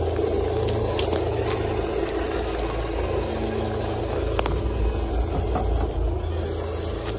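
Electric RC rock crawlers' motors and geared drivetrains whirring steadily as the trucks crawl over the trail, with a thin high whine and a few scattered clicks from the wheels on roots and rocks.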